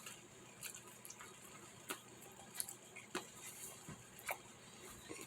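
Faint, scattered wet clicks and smacks of someone chewing a bite of pizza, about one every half second to a second.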